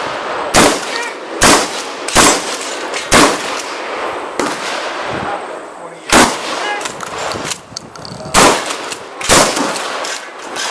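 12-gauge shotgun fired seven times in two strings: four shots roughly a second apart, a pause of about three seconds, then three more shots. Each report rings on briefly afterwards.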